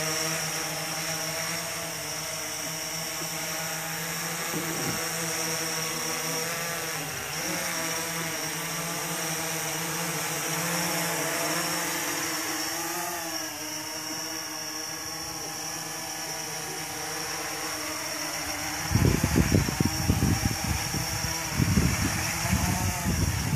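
Blade 350QX quadcopter's four brushless motors and propellers buzzing steadily as it hovers, the pitch bending briefly as the motors correct its erratic drift. From about 19 seconds in, loud irregular wind buffets on the microphone rumble over the motor buzz.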